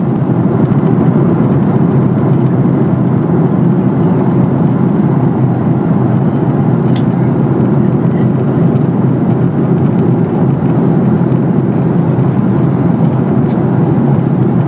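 Steady low roar inside the cabin of a Boeing 767-400ER in flight. It is the noise of its twin General Electric CF6 turbofans and the airflow over the fuselage, heard from a window seat, with a few faint clicks.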